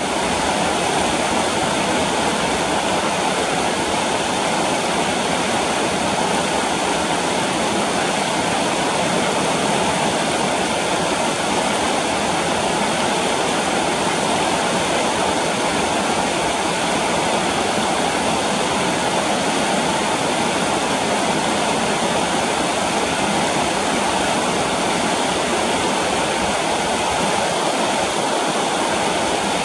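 Fast, shallow mountain stream rushing over rocks and stones, a steady, unbroken roar of water.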